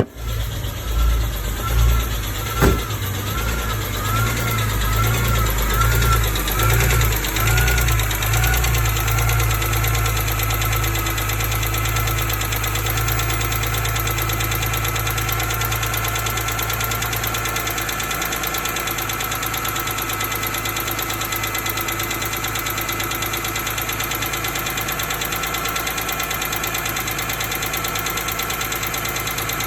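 A 2005 BMW E46 M3's S54 3.2-litre inline-six idles with a ticking noise. One mechanic blames a pitted exhaust-side rocker arm for the tick, and another blames the rod bearings. A whine wavers in pitch for the first several seconds and then holds steady, and there is one sharp knock a few seconds in.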